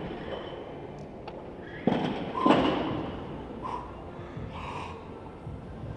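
Quiet hall ambience broken by a few short, sharp breath-like sounds about two seconds in, with smaller ones near four and five seconds in, as a weightlifter sets up over the barbell before a snatch.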